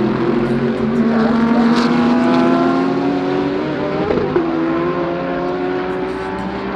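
GT3 race car engines at racing speed, a loud, steady engine note rising slowly in pitch, with a change in the note about four seconds in.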